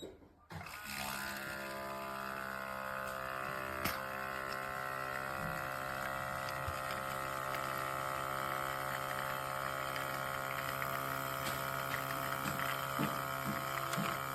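Outin Nano portable espresso machine's pump running with a steady hum while brewing. It starts about half a second in and cuts off abruptly at the end.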